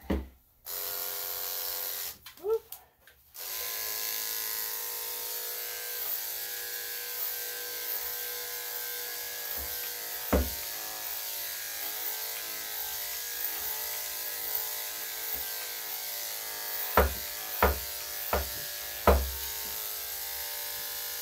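Electric dog grooming clippers switch on for about a second and a half, stop, then start again about three seconds in and run steadily while clipping a small dog's coat. A few sharp knocks sound over the motor: one near the middle and four in quick succession near the end.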